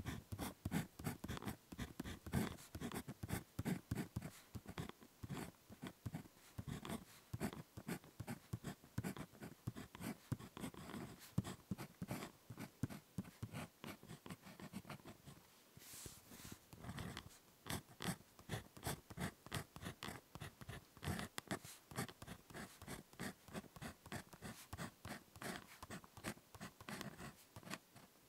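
Ballpoint pen writing on paper: a quick, close run of short scratching strokes and taps, with a brief pause about halfway through.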